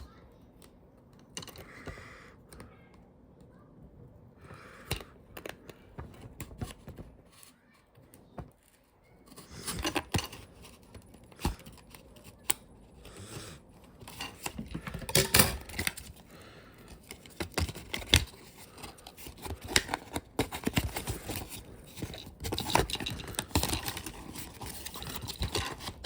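Plastic toy packaging being handled and worked open, with scattered clicks, taps and rustling. Sparse at first, it gets busier with sharp clicks from about ten seconds in.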